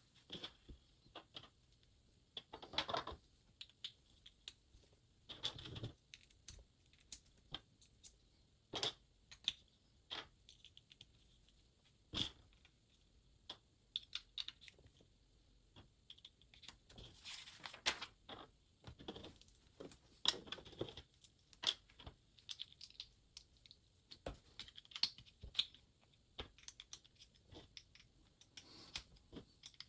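Plastic LEGO pieces clicking and rattling as they are handled and pressed together, in irregular bursts, with a few longer rustles.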